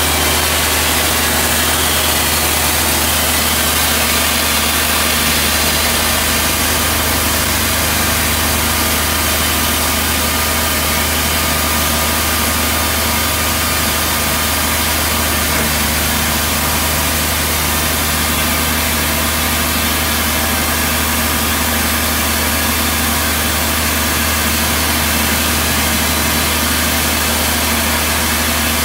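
Ingersoll-Rand T3W drill rig's diesel deck engine running steadily at an even speed, with no change in pitch or level.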